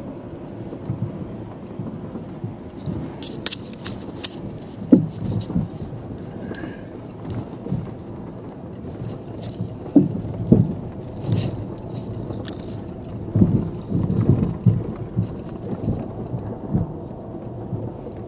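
Car driving slowly on a rutted dirt road, heard from inside the cabin: a steady low rumble with irregular thumps and knocks as the wheels drop into ruts and potholes, the heaviest about five seconds in and again between ten and fifteen seconds, plus a few short rattling clicks.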